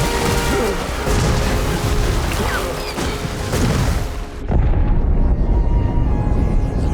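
Film soundtrack of a volcanic eruption: music mixed with deep booms, with gliding pitched calls in the first few seconds. About four and a half seconds in, the sound cuts abruptly to a deep, steady rumble with the high sounds gone.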